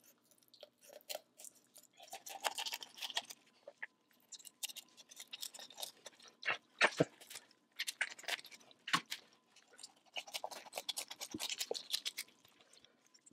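Kitchen shears snipping and crunching through the rib bones of a raw whole chicken to cut out the backbone: an irregular run of crisp clicks and crunches.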